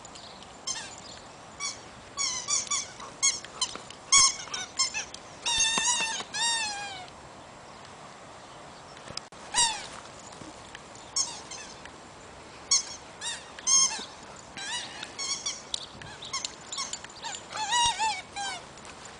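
Squeaker in a dog's toy Christmas cracker squeaking in quick runs of short squeaks as it is chewed. Some squeaks are drawn out with a falling pitch, and there is a quiet stretch of a second or two near the middle.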